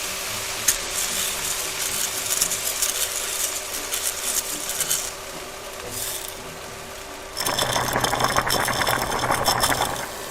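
Rapid mechanical clicking and scraping, with a louder, denser rattle starting about seven seconds in and stopping near the end.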